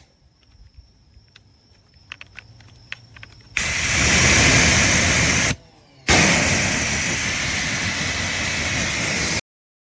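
Pressure washer gun spraying in two loud rushing bursts, about two seconds then about three seconds, with a short break between as the trigger is let go and pulled again. Before that there are a few light clicks over a faint steady high whine. The sound cuts off suddenly near the end.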